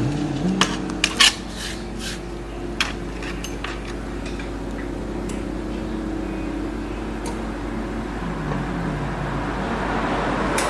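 A few sharp clicks and taps of small hard laptop parts and tools being handled, most of them in the first three seconds, over a steady low hum.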